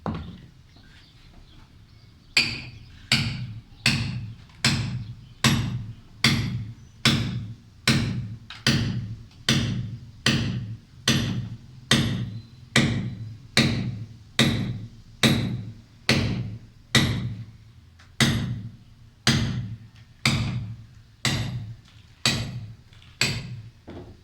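Hand hammer striking a steel chisel in a steady rhythm, about one blow every three-quarters of a second, chipping away a masonry corner. Each blow lands as a sharp clank with a dull thud underneath. The steady run of strikes begins about two seconds in, after one earlier blow.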